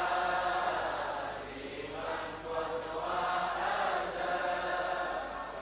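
A congregation chanting a salawat, the sung blessing on the Prophet Muhammad, many voices together in unison in answer to the preacher's call.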